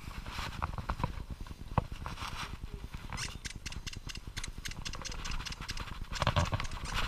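Dachshunds' paws pattering, a rapid run of light clicks and soft thuds over a low rumble, with a louder scuffle near the end.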